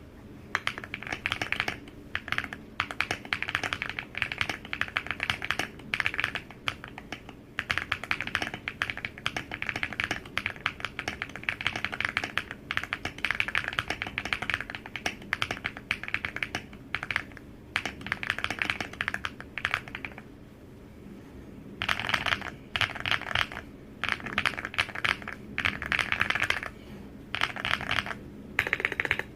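Furycube F75 mechanical keyboard being typed on in fast bursts of key strokes, with short pauses and one longer break about two-thirds of the way through.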